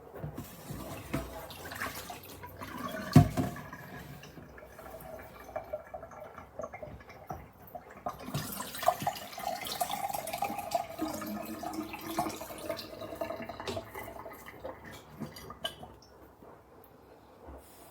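Water splashing and dripping, with a sharp knock about three seconds in.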